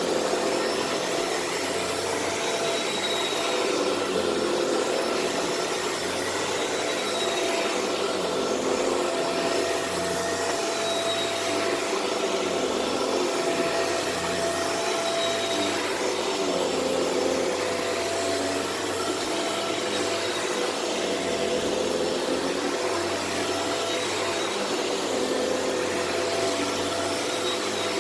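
Shark Rotator Powered Lift-Away vacuum running steadily over carpet: rushing air with a motor whine whose pitch shifts slightly now and then.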